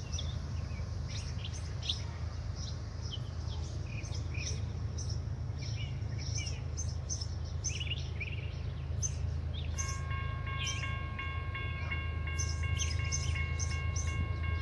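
Steady low rumble of the grain train's diesel locomotives approaching the crossing, with birds chirping. About ten seconds in, a steady high ringing tone joins and holds.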